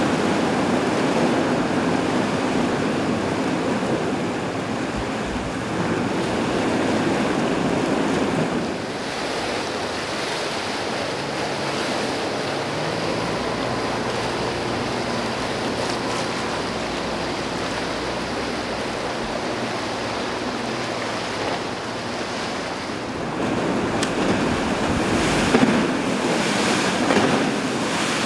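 Rough, churning canal water and boat wakes rushing and splashing, with wind buffeting the microphone. A low boat-engine drone sits under the water in the middle, and near the end the splashing surges louder as a small center-console boat pounds through the waves.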